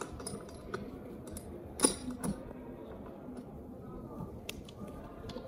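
Metal G-clamp being screwed tight onto a meter rule at a table edge: a few light metallic clicks and clinks from the clamp's screw and handle, the loudest pair about two seconds in.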